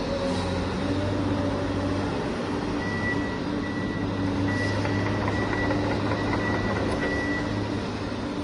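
Electric drive motors and hydraulic pump of a radio-controlled construction machine running steadily with a humming whine. A high beeping tone sounds repeatedly through the middle of the stretch.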